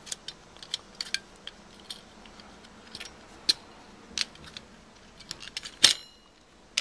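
Small metal clicks and clinks from the parts of an old hard drive being handled and pried apart by hand, irregular and a few to a second. A sharper metallic clink near the end rings briefly.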